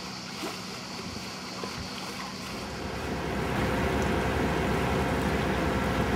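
On board a sailing yacht under way: a steady rush of wind and water, which grows louder and deeper about halfway through and then holds steady.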